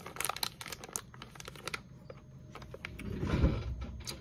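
A shiny metallic popcorn bag being rolled and crinkled shut by hand: quick crackles for about two seconds, then a louder rustle with a dull bump a little after three seconds in.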